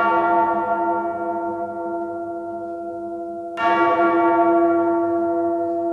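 A deep tolling bell, part of the opening of a rock music track: one stroke is already ringing and fading, and a second stroke comes about three and a half seconds in and rings on.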